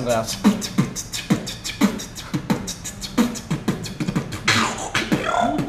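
Beatboxing close to the microphone: an uneven rhythm of short, falling kick-drum booms mixed with quick hi-hat-like clicks.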